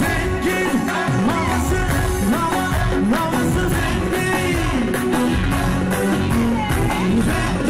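Wedding band music: a singer and a lead melody that slides and curls in pitch over a steady drum beat.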